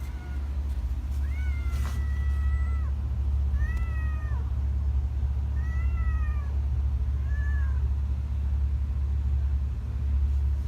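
Stray cat meowing: one long meow about a second in, then three shorter meows, over a steady low rumble.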